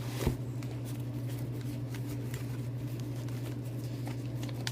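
Faint handling of small survival gear being packed into a pouch, with one sharp knock shortly after the start, over a steady low electrical hum.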